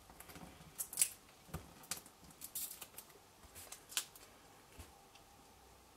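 Faint scattered ticks and light rustles of paper and card being handled: foam adhesive dimensionals being peeled from their backing sheet and pressed onto a punched cardstock circle.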